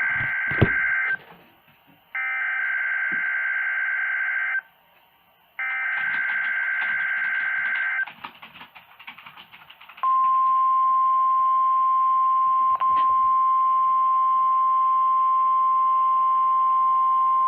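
NOAA Weather Radio SAME data header: three bursts of two-tone digital warble, each about two and a half seconds long with a short gap between them. Then, about ten seconds in, the steady 1050 Hz weather-radio alarm tone comes on, with one brief dropout a few seconds later. It is sent as the station's weekly test of receivers' alarms.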